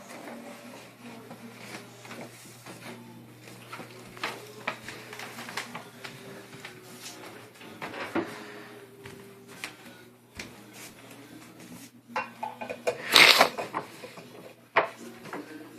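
Gift bags rustling and knocking as a toddler carries them around, with small scattered clicks and rubs and a louder rustle about thirteen seconds in.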